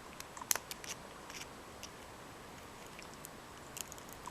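Small, faint clicks and ticks of a flat screwdriver prying a cracked LCD panel away from its backlight inside a Canon PowerShot SD700 IS, with one sharper click about half a second in and a few more near the end.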